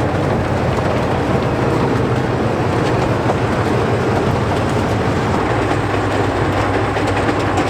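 Freight train rolling along the track: a steady, loud rumble of wheels on rails with a low hum underneath.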